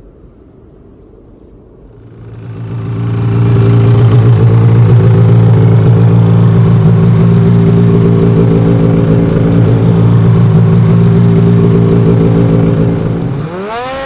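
An engine idling steadily, fading in over a couple of seconds and holding an even pitch, then a brief rev that rises and falls near the end.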